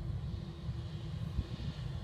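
Distant wide-body jet airliner on approach, heard as a low rumble with a faint high hiss, mixed with wind buffeting the microphone.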